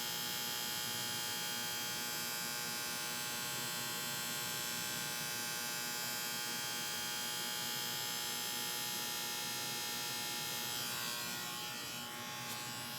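Air-conditioner condenser unit giving a steady electrical buzz, the sound of the unit with a failed start capacitor. It gets slightly quieter and rougher near the end.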